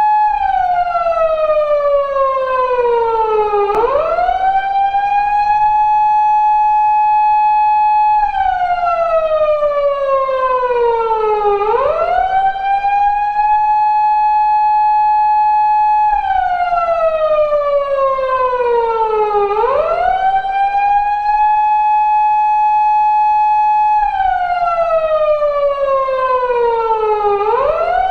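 Japanese police car siren, the 2000s-era wail used on 170- and 180-series Toyota Crown patrol cars, sounding in an even 8-second cycle. It holds a steady high tone for about four seconds, slides down over about three and a half seconds, then swoops quickly back up, falling four times in all.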